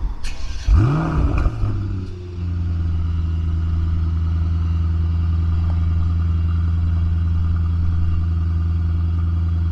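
Mercedes-AMG E63 S's 4.0-litre twin-turbo V8 through its performance exhaust being started warm: it catches about a second in with a brief flare of revs, then settles about two seconds later into a steady idle.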